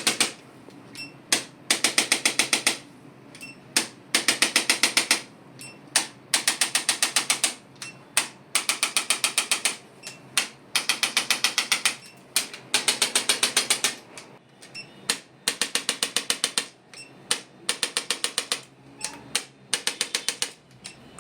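Handheld chiropractic adjusting instrument firing rapid trains of sharp clicks, about ten a second, in bursts of about a second that repeat every couple of seconds as the practitioner delivers the adjustment.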